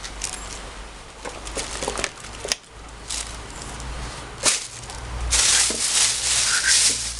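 Packaging being handled: scattered sharp clicks and taps, then a loud stretch of crinkling and rustling from about five seconds in.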